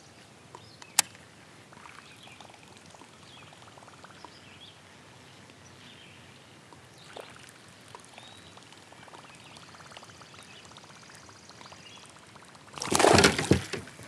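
A fish leaps clear of the water at the kayak's bow and splashes back: one brief, loud splash near the end, as it strikes at a worm dangled just above the surface. Before it, only faint lake ambience, broken by a single sharp click about a second in.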